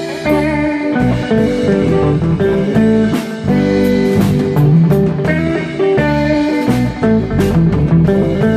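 Live blues-rock band playing: electric guitar over bass guitar and a drum kit with regular cymbal hits.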